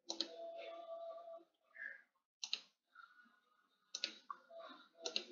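Computer mouse button clicks, about four sharp single clicks spread a second or more apart, as drop-down menus are picked. A faint low voice is heard between the clicks.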